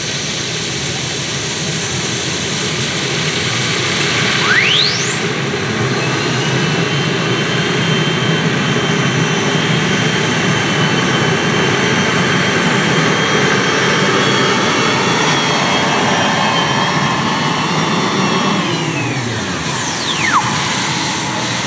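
Light modified pulling tractor running under full power on a pull, a dense engine noise with steady high whines over it. A whistle sweeps sharply up in pitch about five seconds in, and near the end the engine throttles back, its note falling away with a downward-sweeping whistle as the pull ends.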